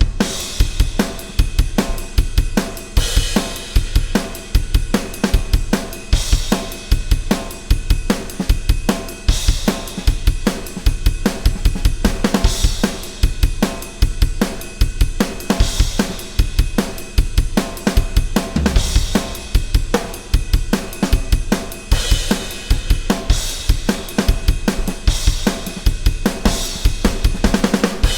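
Drum kit played on its own in a steady, driving rock chorus groove: kick and snare under hi-hat, with cymbal crashes about every three seconds.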